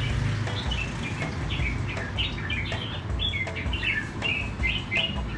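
Small songbirds chirping, a quick run of short, repeated calls, over a steady low background hum.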